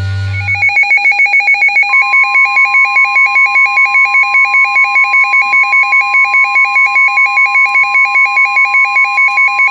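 Weather radio alert for a Special Marine Warning: a rapid two-pitch electronic alarm beeping about four times a second, joined about two seconds in by the steady 1050 Hz NOAA Weather Radio warning tone. The alarm announces the warning message that follows.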